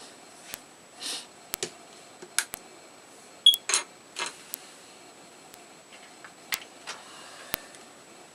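Small parts and tools being handled while a Nook Simple Touch e-reader is worked on: irregular sharp clicks, taps and a few short scrapes, about a dozen over several seconds, the loudest a sharp click about three and a half seconds in.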